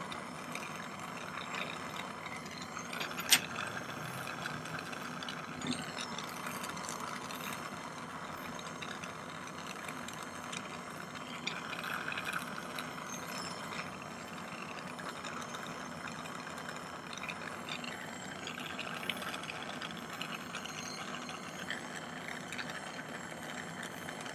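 Jeweller's soldering torch flame hissing steadily as sterling silver wire joints are heated to flow hard solder, with a sharp click about three seconds in.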